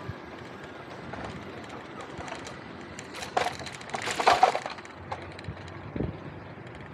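Steady road and wind noise from riding a bicycle, broken by a short crackling clatter a little over three seconds in and a louder one around four seconds in.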